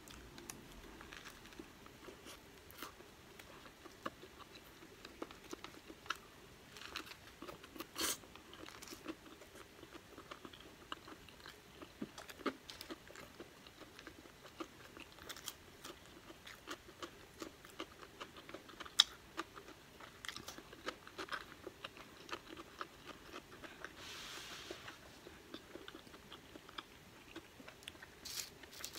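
A person eating close to the microphone: biting and chewing a burger, crinkle-cut fries and a cucumber slice, with many small crunches and mouth clicks.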